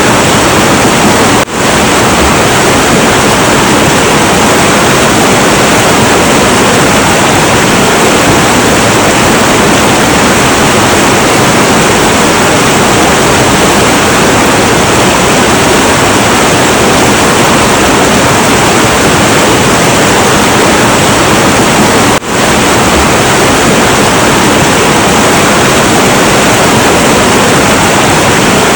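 Heavy, turbulent river water rushing in a loud, steady roar, with two momentary dips in level, about a second and a half in and again about 22 seconds in.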